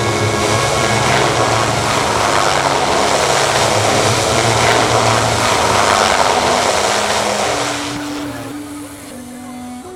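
Loud propeller aircraft engine noise that fades away about eight seconds in, with background music underneath.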